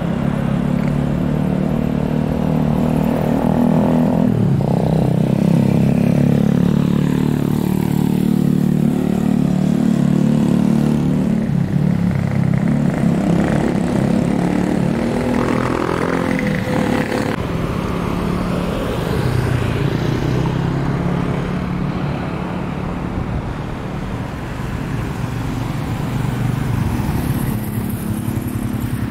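Twin-engine jet airliner passing low overhead on landing approach: loud engine noise with tones that glide down in pitch as it goes over.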